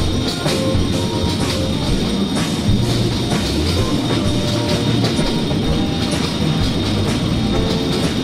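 Background music with a steady beat over a freight train of tank wagons rolling past, its wheels clacking on the rail joints.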